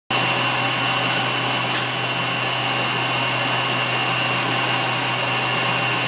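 Wall-mounted electric hand dryer running, a steady loud blowing with a constant high whine and a low motor hum.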